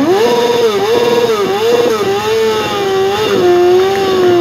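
Sport motorcycle engine revved hard during a stationary burnout. The revs climb sharply at the start, then are held high and bob up and down several times, settling a little lower near the end.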